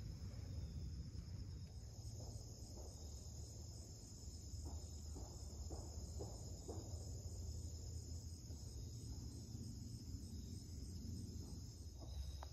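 Insects trilling steadily in a high continuous chorus, over a low wind rumble, with a few faint brief rustles a few seconds in.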